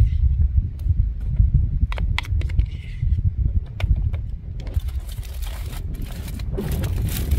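Aluminium foil crinkling as it is folded over a foil tray of potatoes, starting about five seconds in, after a few small clicks and taps of a margarine tub being handled. A loud, uneven low rumble of wind on the microphone runs underneath.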